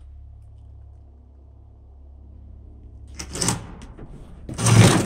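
A door being pushed open: two scraping knocks about a second and a half apart, the second louder and longer, over a steady low hum.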